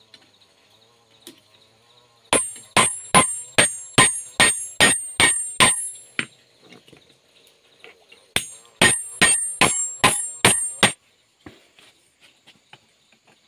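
Hand hammer forging a red-hot steel spade blade on a small steel anvil block: ringing metal blows at about two and a half a second, a run of about ten, a pause of about two seconds, then about seven more.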